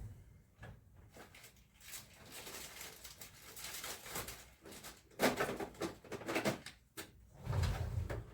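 Handling noise from taking apart a computer monitor: scattered clicks and scraping of plastic parts, with a denser run of sharp clicks about five seconds in and a dull thump near the end.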